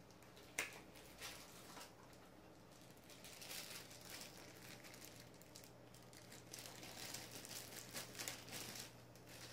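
Faint crinkling of plastic packaging as a telescope eyepiece is unwrapped, in two spells of rustling after a few light clicks near the start, over a steady low hum.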